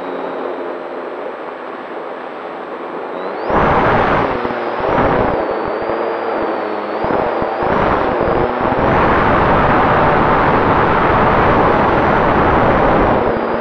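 Onboard sound of a Durafly Tundra model plane in flight: its electric motor and propeller give a thin, high whine that rises and falls with throttle. From about three and a half seconds in, loud rushing wind buffets the microphone in gusts, nearly steady from about nine seconds on.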